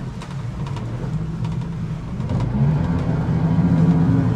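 Boat's Evinrude 250 outboard motor running under way, heard from inside the cabin, with a steady low hum. About halfway through it speeds up, rising in pitch and getting louder.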